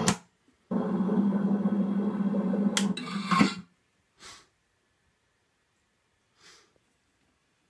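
A steady, buzzy electronic hum lasting about three seconds, then cutting off, followed by near silence with two faint soft noises. It is most likely a sound effect played through the slime blower prop pack's speaker.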